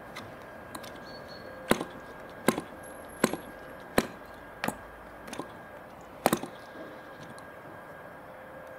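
1946 Super Cyclone .604 single-cylinder two-stroke spark-ignition model engine being hand-flicked by its wooden propeller to start, giving about six sharp single pops, roughly one every 0.7 s, as it fires on a flick but does not catch.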